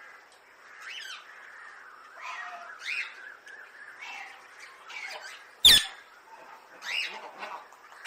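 Caged rose-ringed parakeets calling: short harsh squawks about once a second, with one much louder, sharp screech a little past halfway.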